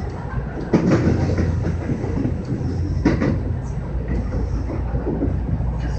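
JR West 225-5100 series electric train running, heard from inside the front car: a steady low rumble with wheels clacking over rail joints and points, two sharp knocks standing out about one and three seconds in.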